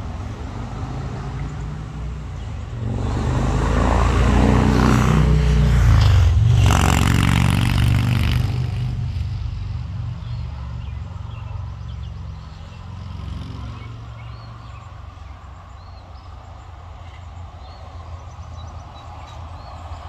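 A road vehicle driving past: its engine and tyre noise swell to a peak about six seconds in and fade away, over a steady low traffic rumble.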